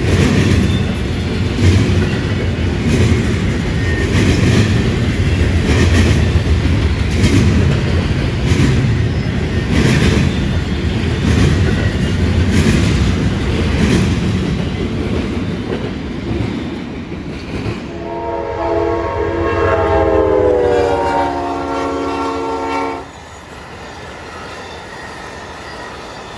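Double-stack intermodal freight train rolling past: a steady rumble, with the wheels clicking over rail joints about every second and a quarter. Late on, a train's multi-note air horn blows for about five seconds, sagging slightly in pitch, then cuts off. A quieter train rumble is left.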